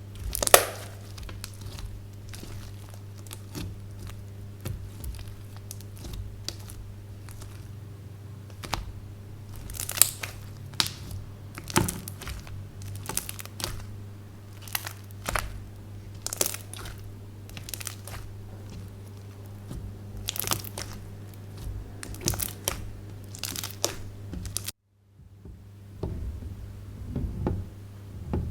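Slime being kneaded and stretched by hand, giving off irregular crackly pops and clicks over a steady low hum, with a brief dropout to silence near the end.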